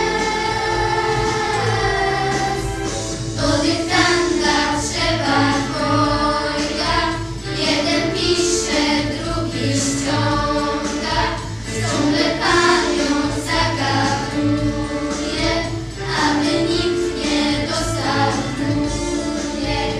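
A group of girls singing a song together over instrumental accompaniment.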